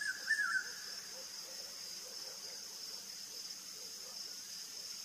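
Steady, high-pitched drone of an insect chorus from the surrounding vegetation, unchanging throughout, with a brief snatch of a voice at the very start.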